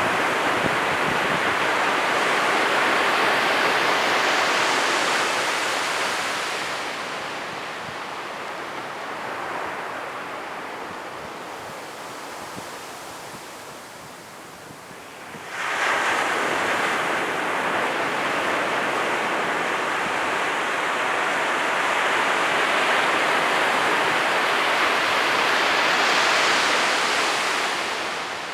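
Ocean waves breaking on a beach: loud surf washes, fades over several seconds, then a new wave breaks suddenly about halfway through and rushes on loudly before fading near the end.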